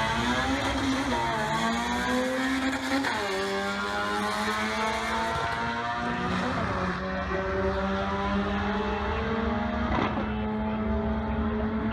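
Naturally aspirated Honda drag car engine at full throttle down the strip, its pitch climbing steadily through each gear and dropping at three gearshifts.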